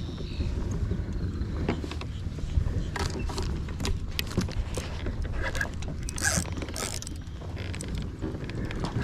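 Steady low rumble of wind on the microphone, with scattered clicks and knocks and two short hissing bursts a little after six seconds in.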